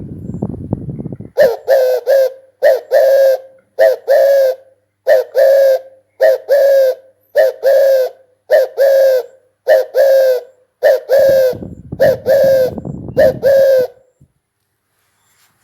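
Spotted dove cooing: a long series of loud, evenly repeated coos, many in close pairs, starting about a second and a half in and stopping about a second before the end.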